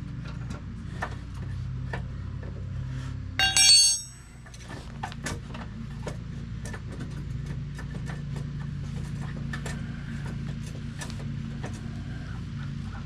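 Metal crank rod of a spare-tire winch clicking and knocking as it is worked loose and withdrawn, with a brief, loud, bright ringing tone about three and a half seconds in, over a steady low hum.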